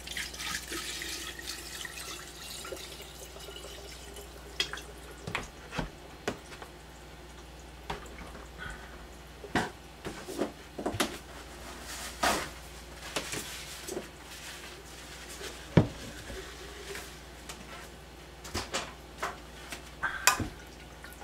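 Vinegar pouring from a plastic gallon jug into a large glass jar, a splashing pour that fades out over the first few seconds. Scattered clicks and knocks follow as the jug and jar are handled.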